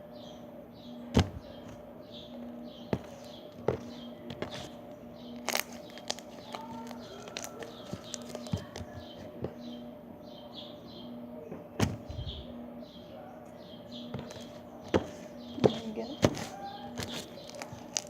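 Slime being worked by hand for ASMR, with sharp popping clicks from air bubbles in the slime every second or few, over a steady low hum.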